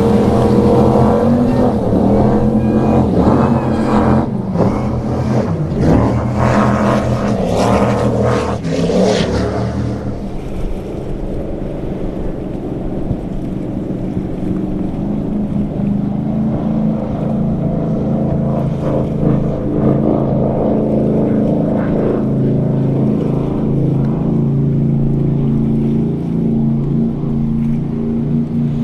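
Cigarette offshore speedboat engines running hard through the inlet, their pitch rising and falling for about the first ten seconds, then a steadier, lower drone.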